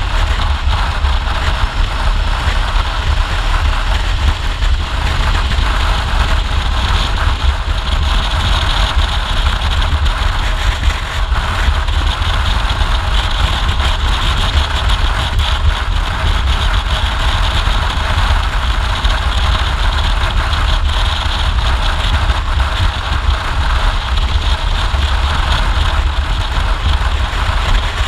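Motorcycle cruising at a steady road speed: engine and tyre noise under constant wind rush on the camera microphone.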